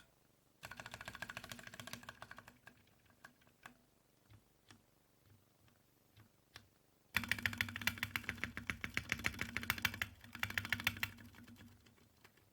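Mechanical keyboard with Outemu Purple light tactile switches being typed on. A quick run of keystrokes comes about a second in, then a few scattered single presses, then a longer, faster run of typing in the second half. The key sound is tinny and hollow.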